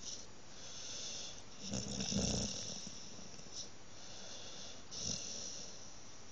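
Staffordshire bull terrier snoring: a run of slow, hissing breaths, with a loud snore about two seconds in and a shorter one about five seconds in.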